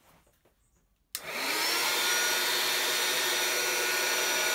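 Small electric blower on a bottom-blast forge's air tube, switched on about a second in: its whine rises as it spins up, then it runs steadily with a rush of air.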